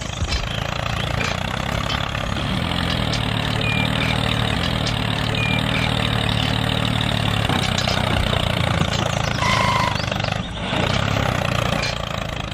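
Tractor engine running steadily with an even low rumble, dipping briefly about ten seconds in.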